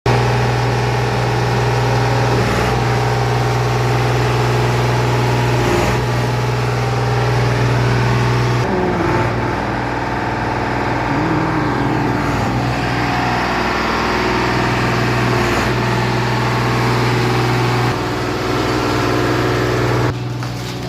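An engine running steadily with a constant low hum and broad noise over it.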